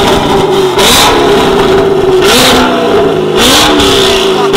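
A car engine revving hard, its pitch climbing and then dropping back several times, about once every second or so.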